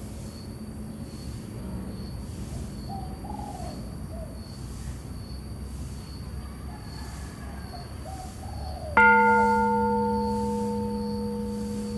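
A temple bell struck once about three-quarters of the way through: a sudden strike that rings on as a deep hum with several higher overtones, fading slowly. Before the strike there is only a low steady background with a faint high pulsing tone and a few soft calls.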